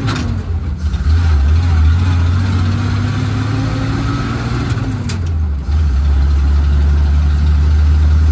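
1948 Dodge Power Wagon's flathead straight-six, heard from inside the cab while driving. The engine note rises as it pulls through a gear, drops briefly about five seconds in at a gear change, then pulls steadily in the next gear.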